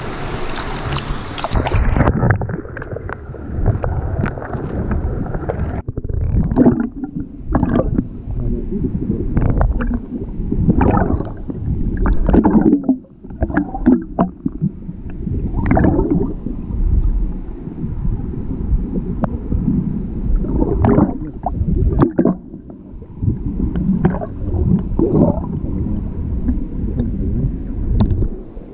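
River water sloshing and gurgling close to the microphone in uneven surges, with wind buffeting the microphone.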